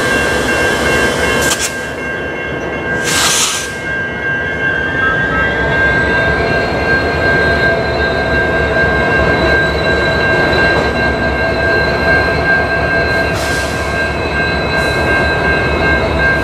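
EMD SD60 diesel locomotives rolling slowly past, their engines running loud and steady with a high whine. The whine's upper tones rise in pitch about five seconds in. A short hiss cuts through about three seconds in.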